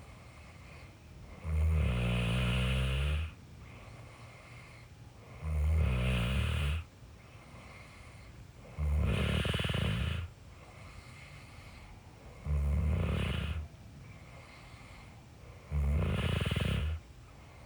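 A person snoring in a slow, regular rhythm: five low snores, one about every three and a half seconds, each lasting a little over a second, with a faint steady background between them.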